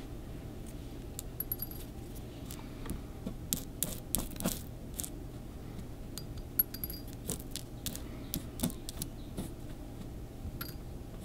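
Small fossil shark teeth clicking and clinking as they are handled and dropped back into a jar, in scattered irregular taps, a few with a short high ring.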